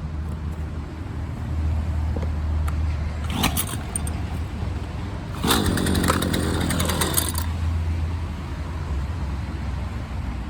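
Husqvarna 128LD string trimmer's 28 cc two-stroke engine idling steadily, with a louder stretch of clattering from about five to seven seconds in.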